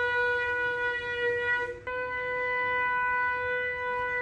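A long, steady blown horn note of a single unwavering pitch, with a brief break just under two seconds in before it carries on.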